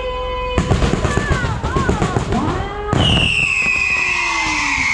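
Fireworks display firing: dense crackling and popping begins about half a second in, with whistling tones that rise and fall. About three seconds in, a louder burst sets off a long whistle that slowly falls in pitch while the crackling continues.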